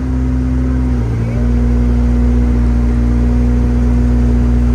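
Excavator's diesel engine running steadily with a constant hum, its note dipping briefly about a second in as the hydraulics take load while the bucket is curled in.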